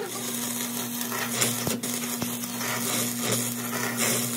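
A machine running steadily: an even hum with a hiss above it, with a few sharp clicks, about four in all.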